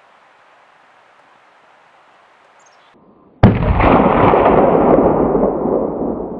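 A single hunting-rifle shot about three and a half seconds in, fired at a deer; the sharp crack is followed by a rolling report that slowly fades over the next few seconds.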